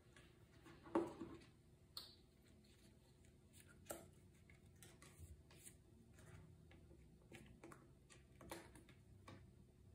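Faint handling of cardboard and paper packaging: a few soft knocks and clicks as a cardboard insert and a paper envelope are lifted out of the box and set down on a wooden table, the loudest knock about a second in.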